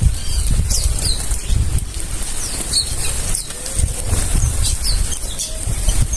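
A flock of birds flapping their wings, with many short high chirps scattered throughout.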